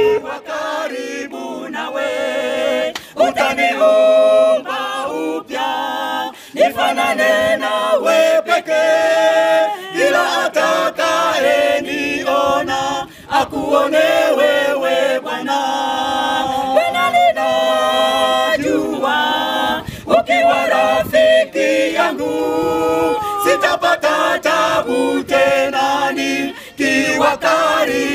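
Small mixed choir of men's and women's voices singing a Swahili hymn a cappella through microphones, in continuous phrases with short breaths between them.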